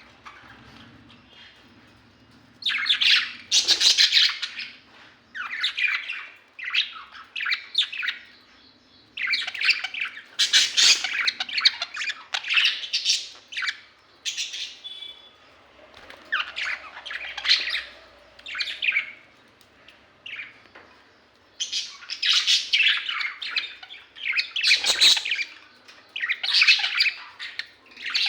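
Budgerigars chattering and squawking in repeated bursts, each about one to two seconds long with short pauses between them, starting a couple of seconds in.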